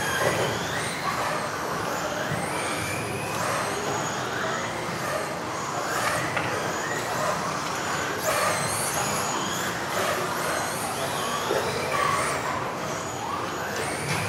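Several RC off-road buggies with electric modified-class motors racing together inside a sports hall. Their high motor whines rise and fall over and over as the cars accelerate and brake.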